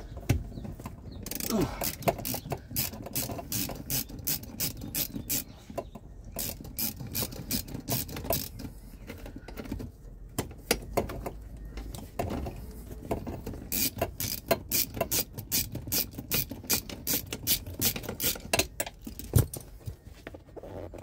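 Hand ratchet clicking in runs of quick strokes with short pauses, backing off a nut that holds the ABS brake unit to the firewall.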